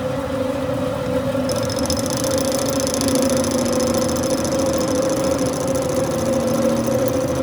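Manual lathe running under power, a steady machine hum with a constant tone, and a high hiss that comes in after about a second and a half.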